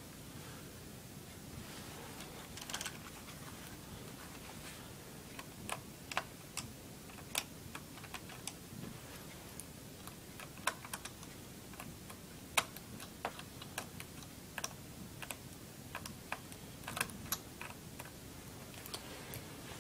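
Light, irregular plastic clicks and taps from a screwdriver and fingers working on the plastic underside of an Acer laptop as its screws are taken out.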